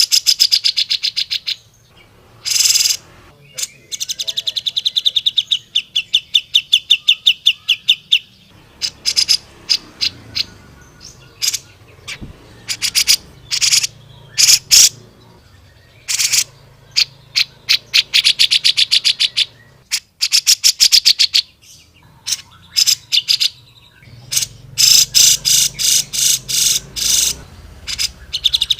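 Grey-cheeked bulbul (cucak jenggot) singing in a fast, excited way: rapid trills of short sharp chirps, about ten notes a second, coming in bursts of a second or two with brief pauses between.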